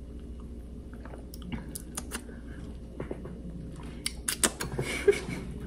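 A person sipping homemade matcha from a mug, then smacking the lips while tasting it: a scatter of small wet mouth clicks, bunched together near the end.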